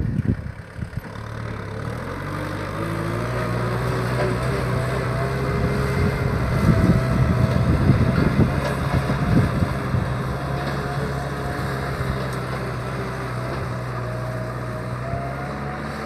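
Kubota M6040SU tractor's diesel engine running steadily under load as it pulls a disc plough through dry field soil. Its note rises about a second in and then holds, with a rougher, louder rumble swelling in the middle.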